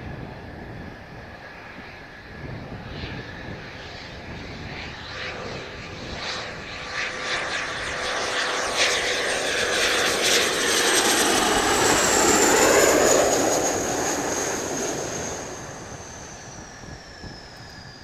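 Kawasaki T-4 jet trainer's twin IHI F3 turbofans on landing approach, growing louder as the jet comes in and passes close about twelve seconds in. A high whine then falls in pitch and the sound fades as it flares toward touchdown.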